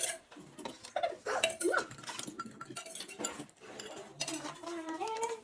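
Spoons and cutlery clicking and clinking against plates while eating, with short snatches of voice.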